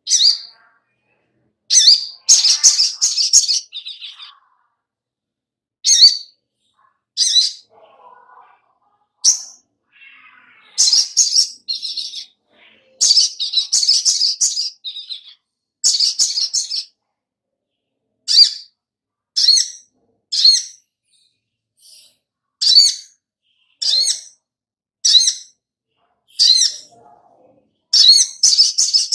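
A caged sogok ontong sunbird singing: bursts of high, sharp chirping phrases, some single notes and some quick runs lasting about a second, broken by short pauses.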